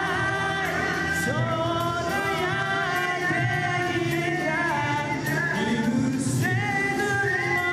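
A man singing a song into a handheld microphone over a backing track.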